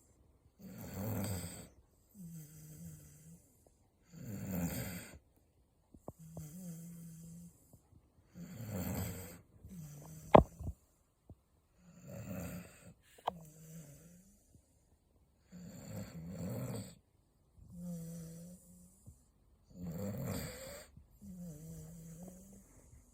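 A beagle snoring in its sleep: a louder snore about every four seconds, with a quieter, steady low-pitched breath between them. About ten seconds in there is one sharp click, the loudest sound, and a fainter click about three seconds later.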